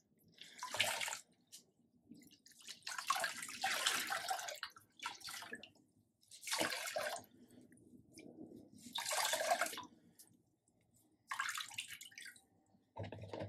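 Water splashing and streaming back into a plastic basin as wool skeins, soaked in water and vinegar before dyeing, are wrung out by hand. It comes in about six separate bursts with short pauses between them, one for each squeeze.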